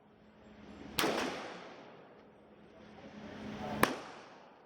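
Two gunshots on a firing range, nearly three seconds apart, each a sharp crack followed by a fading echo.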